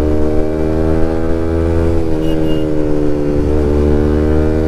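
A sport motorcycle's engine running at a steady cruise under the rider, holding an almost even note that dips slightly twice.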